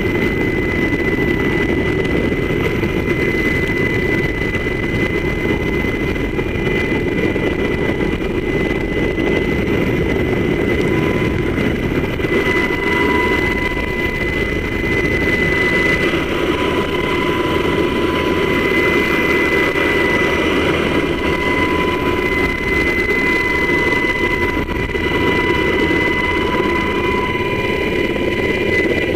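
HH-60 Pave Hawk helicopter hovering, heard from its open cabin door: the twin turboshaft engines and rotor make a loud, steady noise with a constant high whine over it.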